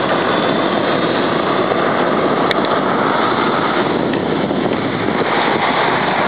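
Boeing 737-700's CFM56-7B jet engines as the airliner passes low on landing approach: loud, steady jet noise with no breaks.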